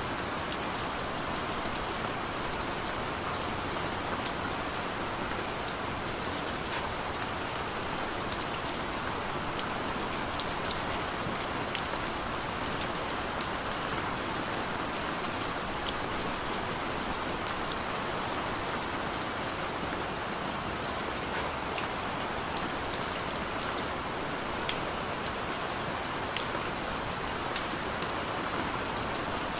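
Steady rain falling on a surface, an even hiss with scattered sharp ticks of individual drops.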